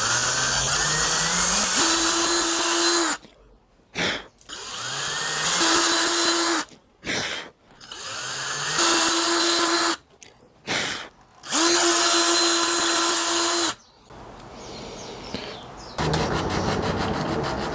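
Electric drill with a 13/64 bit boring holes into a wooden stock. The motor spins up with a rising whine, runs steadily, then stops, four times in a row, each run a few seconds long. Near the end a softer scraping sound with a quick, even rhythm takes over.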